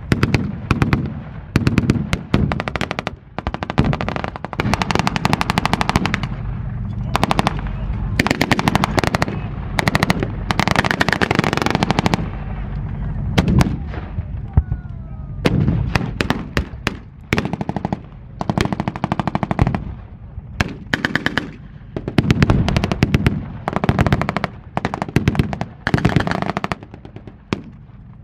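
Blank-firing machine guns and rifles in a staged battle: rapid rattling bursts and scattered single shots, thick throughout, over a low steady rumble.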